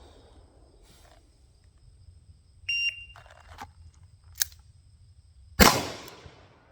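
A shot timer's short electronic start beep, then a sharp click, and about three seconds after the beep a single loud shot from a Ruger New Model Blackhawk single-action revolver.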